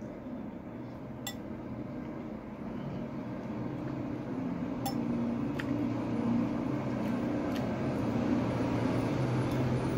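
A few light clinks of a metal fork against a ceramic bowl while eating noodles, over the low rumble of a motor vehicle's engine that grows steadily louder through the second half.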